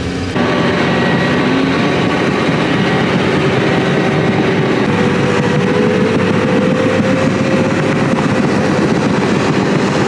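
Heavy diesel engine of a tracked drainage-tile plow running steadily under load as it pulls tile into the ground, its level stepping up just after the start.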